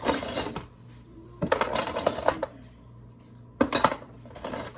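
Metal kitchenware clattering and clinking in a few short rattling bursts, the middle one the longest, as a pot and utensils are handled.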